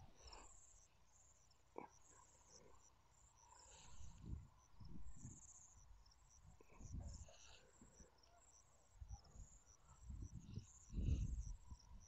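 Crickets chirping faintly and steadily in a field, a high repeating trill. Low rumbles on the microphone come and go, the loudest near the end.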